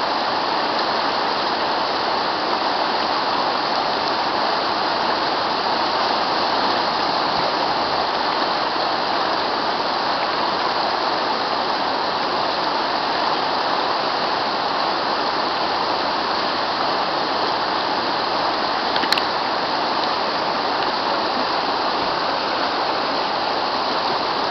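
Fast, shallow mountain river rushing over stones, a steady loud wash of water close by. One brief sharp click comes about three-quarters of the way through.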